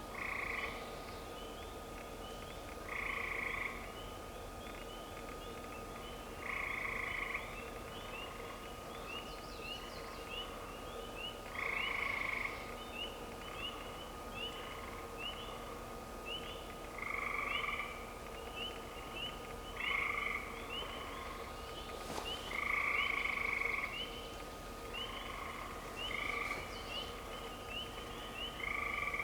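Frog chorus: a steady run of short, high, upward peeps, with a louder trill every two to three seconds.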